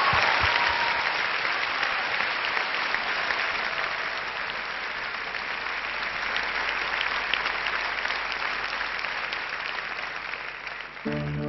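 Large theatre audience applauding, the clapping slowly fading. About a second before the end, the band's opening music comes in with plucked-string notes.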